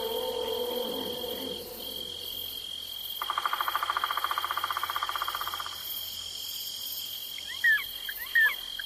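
Night-forest ambience of insects: a steady high insect drone under a pulsing cricket trill that runs for a couple of seconds in the middle. Near the end, a few short, sharp chirps cut in twice, and these are the loudest sounds.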